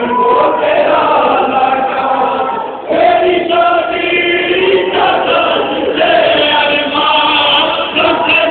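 A group of mourners chanting a Muharram lament (nauha) together in loud sung phrases, a new phrase starting about three seconds in and again near six seconds.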